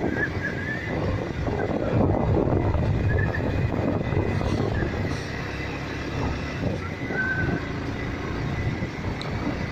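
Motorcycle on the move: its engine running under a heavy, fluttering rush of wind on the microphone.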